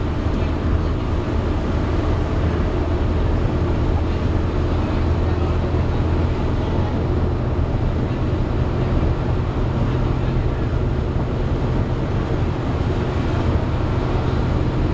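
Volvo B7TL double-decker bus under way, heard from inside on the upper deck: a steady low engine drone with the engine's cooling fan hoovering over it.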